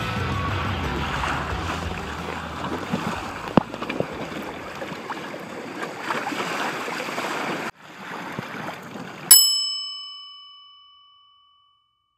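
Water rushing and splashing along the hull of a Hobie Adventure Island trimaran moving fast under sail, stopping abruptly about nine seconds in. It is followed by a single bell ding, the loudest sound, which rings out and fades over about two seconds.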